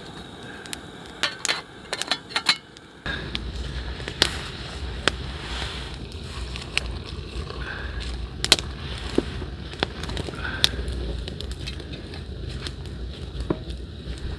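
Wind rumbling on the microphone from about three seconds in, with scattered sharp clicks and pops from a crackling campfire and from camp cookware being handled.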